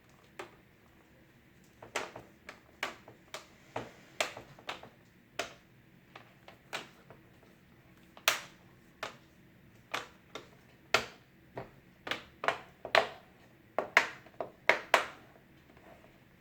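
Plastic screen bezel of a Dell Latitude E5470 laptop being pressed back into place, its clips snapping in with a long run of sharp clicks at irregular intervals.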